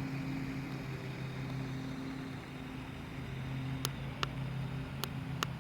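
A steady low motor hum, with a few sharp clicks in the second half.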